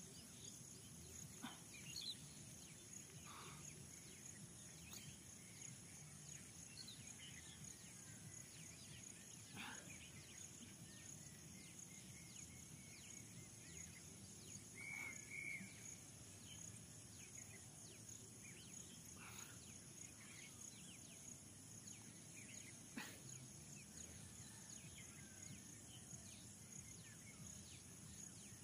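Near silence: faint open-air ambience with a steady high-pitched hiss or whine, a few faint scattered ticks, and one short chirp about halfway through.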